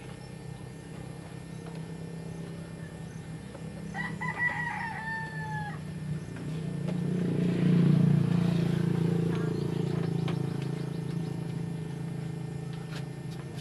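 A rooster crows once about four seconds in, a pitched call of nearly two seconds that drops slightly at the end. Under it a low steady drone swells to its loudest a little after the middle and then fades.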